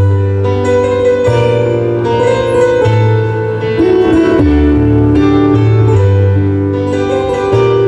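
A live band playing a song's instrumental intro with no vocals: sustained keyboard chords over a deep bass line, the chords changing every second or so.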